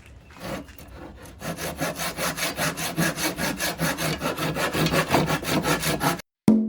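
Sandpaper rubbed back and forth on a wooden board by hand, in quick even strokes about four or five a second, cutting off suddenly near the end.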